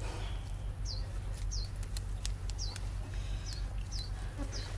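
A bird chirping over and over, short high notes sliding downward, about one or two a second, over a steady low background rumble.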